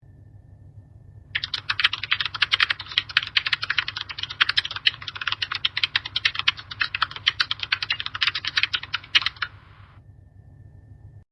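Computer keyboard typing: a fast, continuous run of keystroke clicks starting about a second and a half in and stopping about two seconds before the end, over a faint steady low hum.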